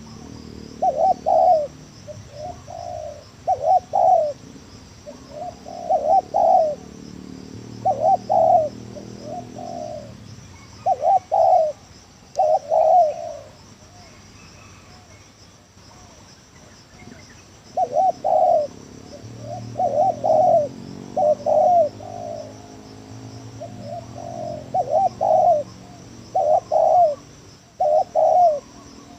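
Spotted dove cooing over and over in short phrases of a few notes each, pausing for about five seconds midway before starting again. Insects buzz steadily and faintly behind it.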